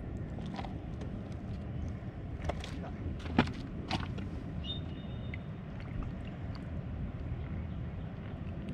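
Steady low outdoor background rumble, broken by a few sharp knocks between about two and a half and four seconds in, the loudest about three and a half seconds in, and a brief high chirp soon after.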